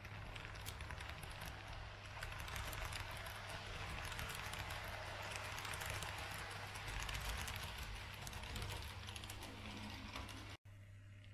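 Model train running past close by, its wheels rattling and clicking on the track over a steady hum. The noise is loudest in the middle, then drops out abruptly about ten and a half seconds in and comes back quieter.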